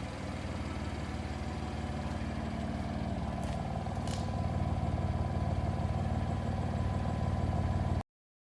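BMW M4's twin-turbo straight-six engine running steadily, getting a little louder about halfway through, with two short clicks in the middle.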